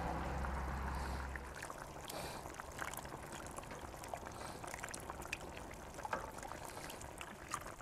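Broth being spooned out of a kazan into a clay bowl: faint trickling and dribbling of liquid, with scattered light clicks of the metal spoon.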